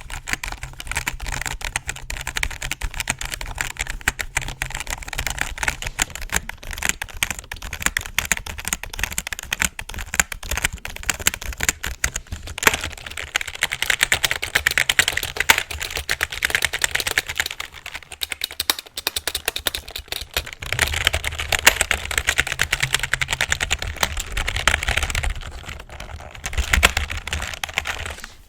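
Computer keyboard being typed on fast, a dense, unbroken clatter of keystrokes.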